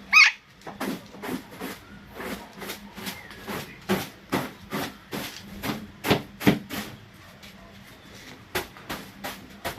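A parrot gives one short, sharp squawk at the start, followed by a run of short rough scratchy sounds, about two or three a second.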